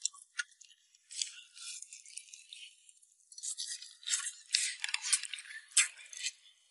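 Close-miked eating of a braised chicken leg: wet, crackly chewing and the tearing of sticky skin and meat off the bone in irregular bursts, louder in the second half.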